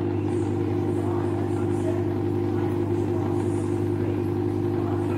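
A steady, low, motor-like hum at one constant pitch.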